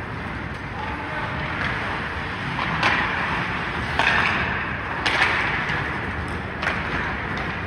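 Ice hockey play on a rink: skate blades scraping on the ice and sharp clacks of sticks and puck, several times over a steady rink hum.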